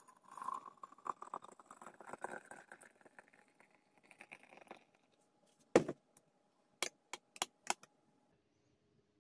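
Water poured from an electric kettle into a glass teapot of crushed berries, rising in pitch as the pot fills. Then a spoon clinks sharply against the glass several times while stirring, the first clink the loudest.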